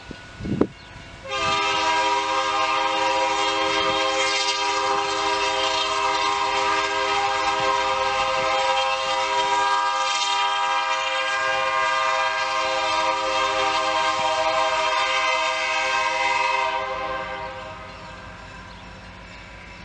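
Steam whistle of Nickel Plate Road 765, a 2-8-4 Berkshire steam locomotive, blown in one long, steady blast with several notes sounding together. It starts about a second in and lasts about fifteen seconds before cutting off near the end, leaving a low rumble.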